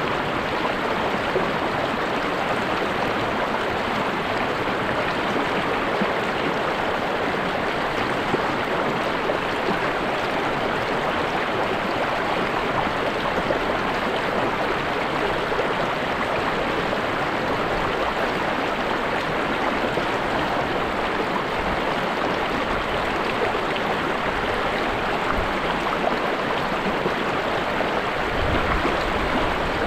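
Stream water flowing and gurgling steadily over rocks.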